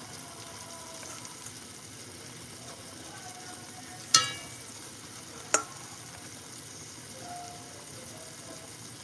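Spaghetti meat sauce simmering steadily in a large metal pot while a metal ladle skims oil off its surface. The ladle clinks sharply against the pot twice, about four and five and a half seconds in.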